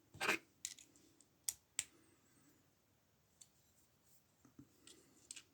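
Metal lock-picking tools clicking and scraping against an ABUS lever padlock while being worked into the keyway: a short scrape near the start, then a few sharp clicks and some lighter ticks.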